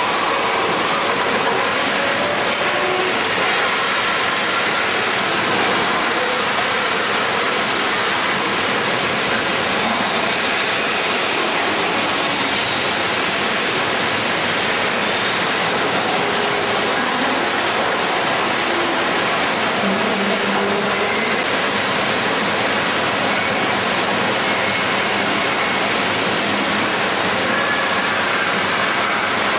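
Steady, loud din of a bucket-line gold dredge at work: an even, unbroken rushing noise of machinery, gravel and water.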